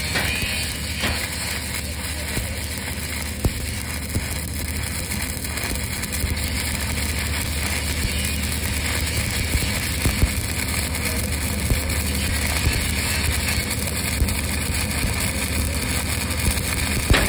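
E6010 stick-welding arc from 5P rods crackling and popping steadily, with many small sharp pops, as a vertical weld is run on steel tank plate. A steady low engine drone runs underneath.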